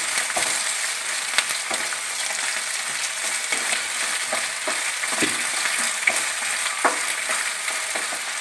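Dried red chillies, garlic, ginger and green chillies sizzling in hot sesame oil in a nonstick pan, stirred with a spatula that now and then clicks and scrapes against the pan. The spices are being fried until their raw smell is gone.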